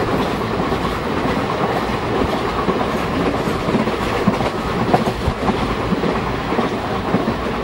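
A moving train heard from inside a carriage: the steady running noise of wheels on the rails, with a few sharper clicks.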